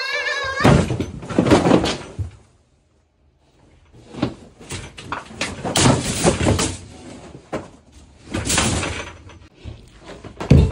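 A run of bangs, knocks and clattering, broken by about a second of silence some two and a half seconds in.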